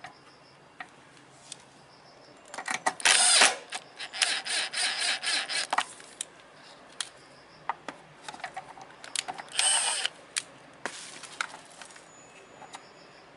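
Hand tools and metal parts at work on a scooter's rear brake: scattered clicks and knocks, a stretch of rapid ratchet-like clicking lasting about three seconds, and a shorter burst of it later.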